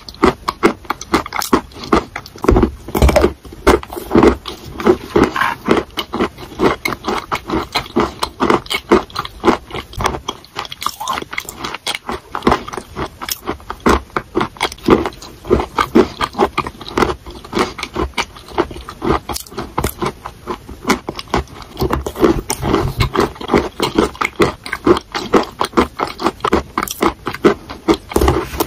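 Close-up chewing of soaked chalk chunks, with a metal spoon scraping the ceramic bowl; a dense run of wet clicks and crunches.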